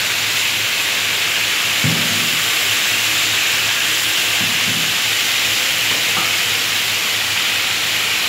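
Slices of marinated meat frying in hot oil in a steel wok: a steady sizzling hiss. A few short knocks come about two, four and a half and six seconds in as metal tongs turn the pieces.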